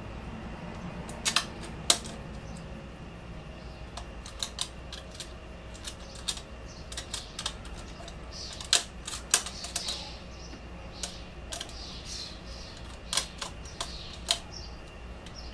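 Irregular sharp metallic clicks and taps of a small hand tool and screws against a metal license plate bracket as the screws are fitted and hand-tightened, over a steady low hum.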